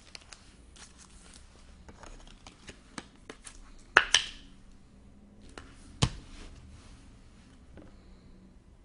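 Trading cards and packs being handled by hand: scattered light clicks and rustles, with two sharper snaps about four and six seconds in.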